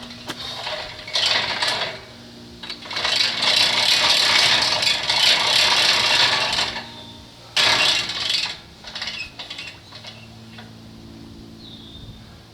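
A steady low engine hum runs throughout, with loud bursts of rattling and scraping about a second in, again from about three to seven seconds, and once more near eight seconds.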